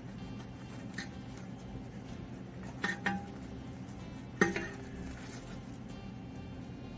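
A few light metallic clinks and knocks, the loudest about four and a half seconds in, the later ones ringing briefly, over a faint steady hum.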